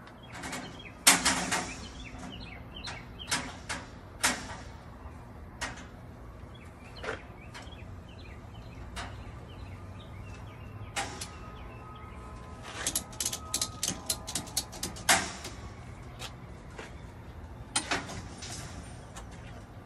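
Ratchet strap being cranked tight: a string of sharp metallic clicks, scattered at first, then a quick run of clicks about two-thirds of the way through.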